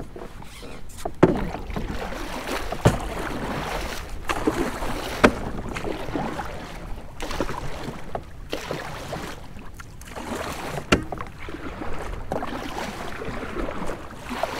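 Water lapping against the hull of an Old Town Sportsman Autopilot 120 fishing kayak, with wind on the microphone and a few sharp knocks.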